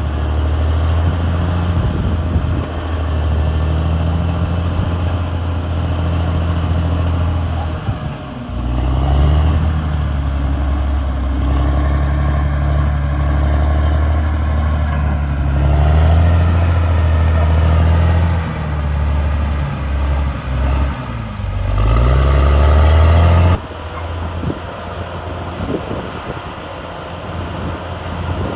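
Caterpillar D6R bulldozer's diesel engine working under changing load, its note sagging and rising again. The engine note climbs about a third of the way in and again near the two-thirds mark, then the level drops suddenly, leaving the engine running with scattered knocks.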